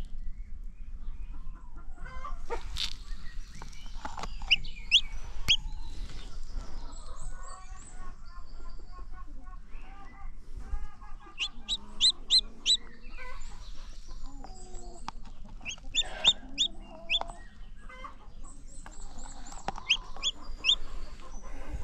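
Chicks peeping in quick runs of short, high-pitched notes, with a brooding hen clucking lower in between.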